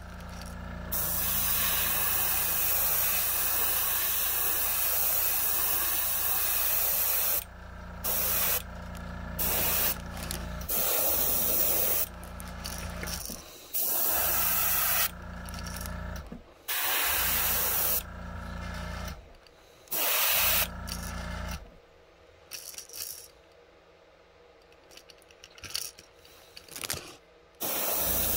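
Iwata Eclipse airbrush spraying paint in a series of hissing bursts of a second or several, each broken off as the trigger is let go. Under it runs the steady hum of the air compressor, which stops about three-quarters of the way through, leaving only a few short puffs.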